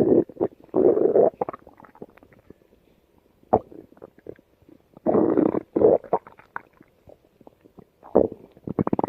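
Stomach growling: gurgling, crackly rumbles that come in irregular bursts. The heaviest bursts come right at the start and about five seconds in, with smaller pops and gurgles in between and another rumble near the end.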